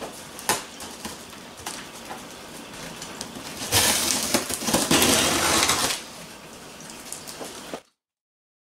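Scissors cutting the packing tape along the top seam of a cardboard box: small clicks and scrapes, then a louder ripping slice through the tape lasting about two seconds, then a few light scrapes before the sound cuts off completely near the end.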